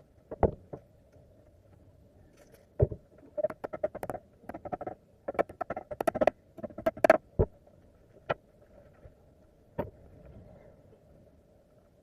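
Carpentry work sounds: irregular sharp knocks and taps of tools or wood pieces striking, bunched together about three to seven seconds in, with a few single knocks later, over a faint steady hum.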